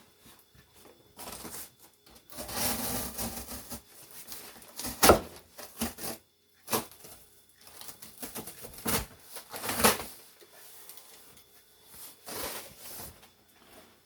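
Cardboard box and packing being handled and opened: irregular scraping and rustling with several sharp knocks, the loudest about five seconds in.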